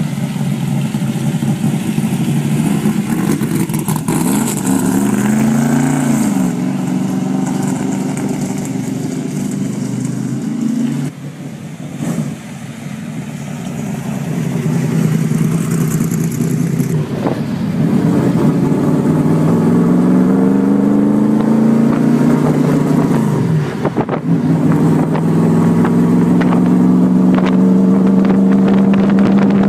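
Factory Five Mk.3 Roadster's V8 engine pulling away and accelerating, its pitch climbing and then dropping back several times as it shifts through the gears.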